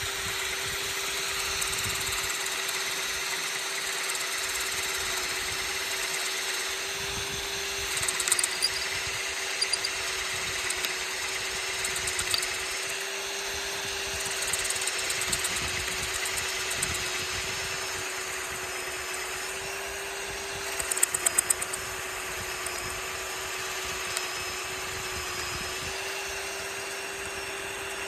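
Power drill running steadily under load, boring the hole for a screw-in gate hinge anchor in a gate post. Short bursts of rattling clicks come about 8, 12 and 21 seconds in and again near the end.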